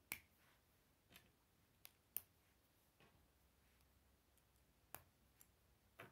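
Plastic K'nex connectors and rods clicking as they are snapped together and handled: about eight short, sharp clicks at irregular intervals, the loudest about two seconds in.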